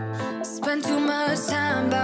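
Background music: a song with a melody over held bass notes that change every half second or so.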